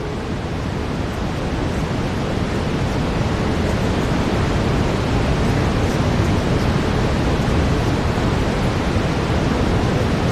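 Steady synthetic brown noise, a deep even hiss heaviest in the low end, with a faint sustained 432 Hz tone beneath it.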